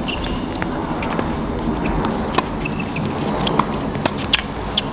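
Tennis rally in doubles play: about half a dozen sharp pops of racquets striking the ball and the ball bouncing, coming faster near the end in a quick exchange of volleys at the net, over a steady outdoor background hiss.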